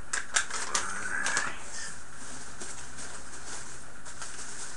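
Paper and foam packing peanuts rustle and click in a cardboard box for the first second or two, with a brief murmured hum about a second in. After that there is only steady room hiss with a faint low hum.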